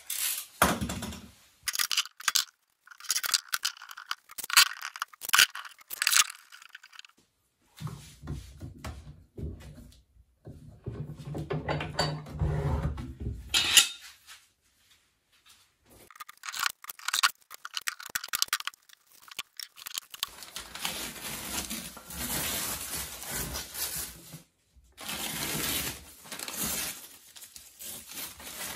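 Steel bar clamps being handled on a veneer press, with sharp metallic clicks and clanks and a low rumbling, scraping stretch in the middle. In the last third, newspaper being peeled and torn off a freshly glued veneer panel, a continuous rustling and tearing.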